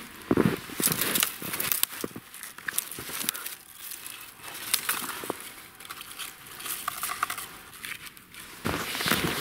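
Rustling and crinkling of red cloth fladry and their cord as the flag line is pulled off its reel and tied to a birch trunk, with gloved hands and clothing brushing. The handling is loudest in the first second and again near the end.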